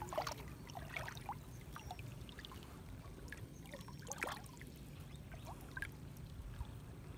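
Water trickling and dripping off a gill net as it is pulled in by hand from a lake, with scattered small drips and splashes.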